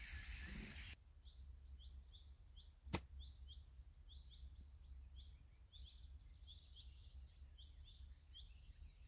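A single sharp click about three seconds in, a golf club striking the ball on a chip shot, over faint, rapid bird chirping.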